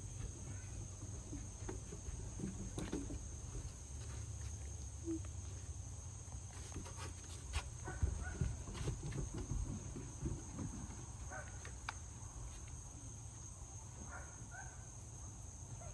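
Steady high drone of insects, with scattered light footsteps from bare feet and a standard poodle puppy's paws on a wooden deck, busiest in the middle.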